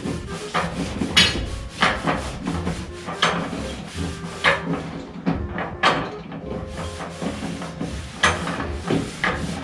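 Irregular knocks, clunks and scraping of metal parts being worked loose by hand on a car body, about a stroke or two a second.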